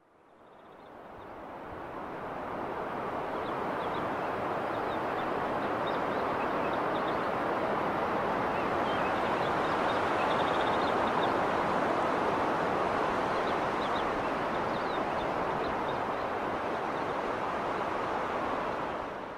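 Steady rushing wind, fading in over the first few seconds and out at the very end, with faint short high chirps scattered through it.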